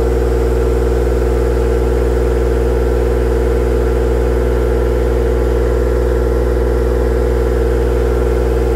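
Miller 325 engine-driven welder's engine running at a steady speed, a constant hum that does not change.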